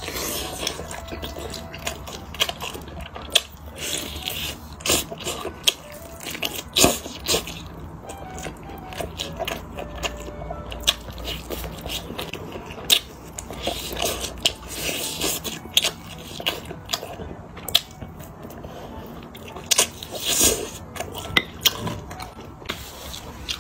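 Close-miked eating sounds: biting and tearing meat from a roasted chicken thigh and chewing it, with many short, irregular wet smacks and clicks of the mouth.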